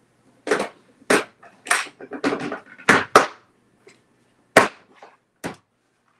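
Red plastic case of a Craftsman socket set and its chrome sockets being handled: an irregular series of about a dozen sharp clacks and knocks.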